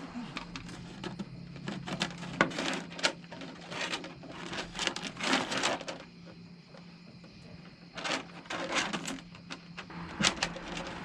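Electrical wire being pulled through the boat's interior, rubbing and scraping in several spells with small clicks in between. A steady low hum runs underneath.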